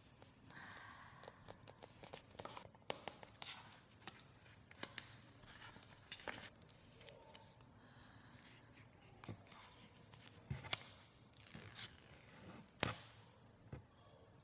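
iPhone box and packaging being opened and handled: short tearing and scraping of paper, with scattered sharp clicks and taps, the loudest tap about a second and a half before the end.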